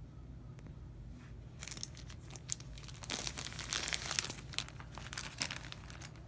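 Plastic shrink wrap on a vinyl record sleeve crinkling as it is handled, in irregular crackles that start about a second and a half in and stop just before the end.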